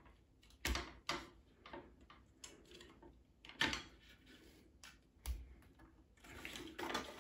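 Light clicks and clacks of a roll-up aluminium tabletop's slats knocking against each other and against the metal frame as the top is pushed off and folded up, with a denser rattle near the end.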